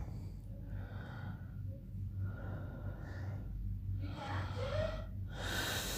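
A sleeping man breathing heavily through nose and mouth, about four noisy breaths in and out in a row, between his loud snores.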